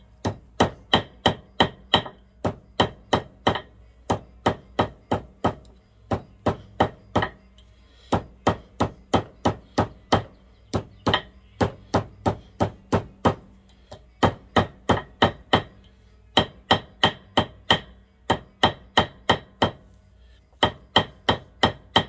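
Light hammer taps on a bronze washer seated on a steel trailer-hitch ball, about three a second in runs with short pauses: the washer's edges are being bent over to form it, metal on metal.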